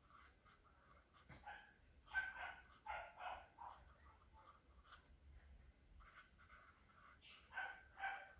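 Felt-tip marker squeaking faintly on paper in short bursts as words are written.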